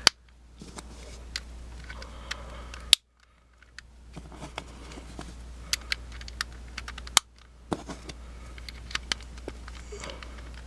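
Small plastic clicks and taps of Rubik's cube tiles and pieces being handled, pried and snapped on and off. Three sharper clicks, at the start, about 3 seconds in and about 7 seconds in, are each followed by a short dead gap.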